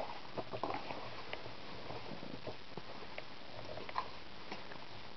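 A cat chewing and licking a catnip toy mouse: faint, irregular small clicks and smacks, a quick cluster of them about half a second in, then scattered single ones.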